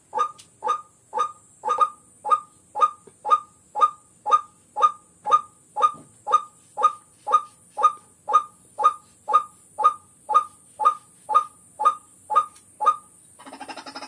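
A rail's call, one short note repeated evenly about twice a second, loud and steady, stopping shortly before the end. A faint steady high hiss runs underneath, and near the end a scratchy rustling noise takes over.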